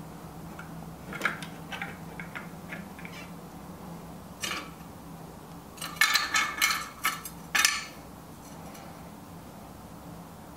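Small clicks and clatter of plastic and metal parts being handled as a replacement load cell is fitted into a Baratza Esatto scale housing, with a scrape about four and a half seconds in and a burst of louder rattling clicks from about six to eight seconds in. A steady low hum runs underneath.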